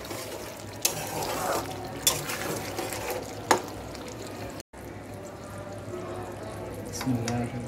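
Mustard egg curry sizzling and bubbling in an aluminium pot, with a metal spoon stirring and knocking against the pot about three times in the first half.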